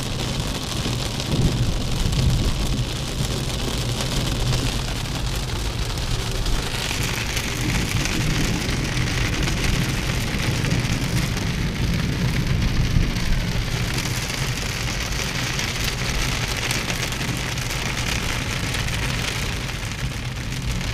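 Heavy rain beating on a car's windscreen and roof, heard from inside the cabin over the car's steady low engine and road hum. The rain hiss grows louder about six seconds in.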